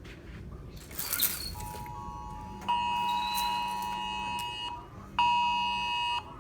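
Emergency alert attention signal: two steady tones sounding together, a two-second tone and then a one-second tone after a short pause, the cadence of a wireless emergency alert, announcing an incoming weather warning. A brief rustling crackle comes about a second in, before the tones.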